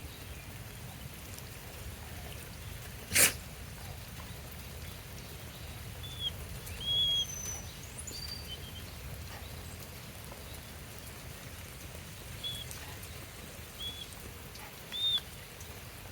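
Several brief high-pitched chirps, a few seconds apart, over a steady low rumble, with one sharp click about three seconds in.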